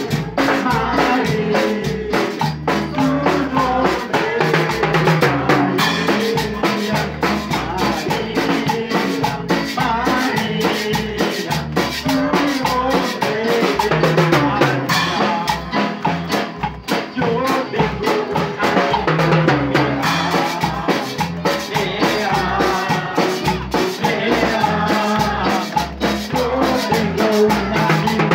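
Loud live worship music: a drum kit keeps a steady beat under a melody, with no pause.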